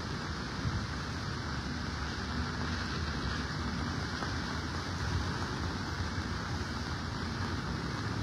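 Steady rain falling on a wet street, an even hiss with a low rumble underneath.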